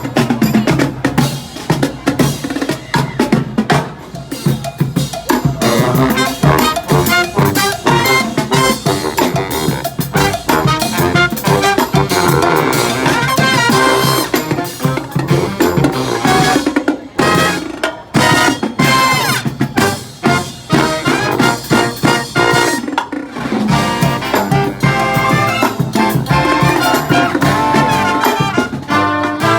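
Live brass band with drums and percussion playing an upbeat tune.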